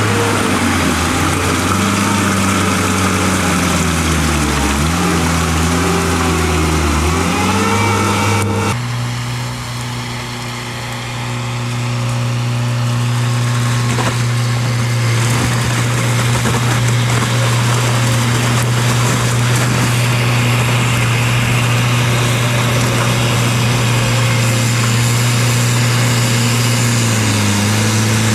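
Mudd-Ox tracked amphibious vehicle's engine running under load, its pitch rising and falling with the throttle for the first several seconds, then changing abruptly to a steadier drone after about nine seconds.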